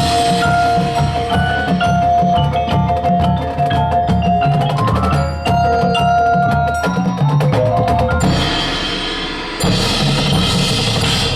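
High school marching drumline and front ensemble playing: bass drums and sharp drum strokes under a pitched mallet melody with a long held note. The playing eases off briefly, then a bright cymbal-like wash comes in near the end.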